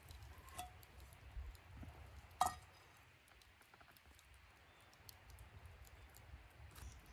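Faint handling sounds: scattered small clicks and taps, with one sharp click about two and a half seconds in, as a clear plastic clamshell pack of cherry tomatoes is picked up and handled.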